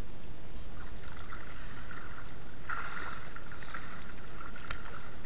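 Water sloshing and splashing as legs wade through shallow water, over a steady low rumble, with a sharp click near the end.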